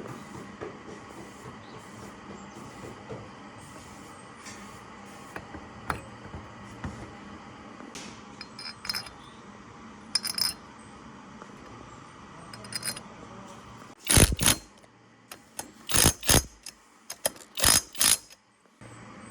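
Small metal parts clinking and being handled, with scattered light clicks, then a few short, loud bursts of noise about fourteen to eighteen seconds in.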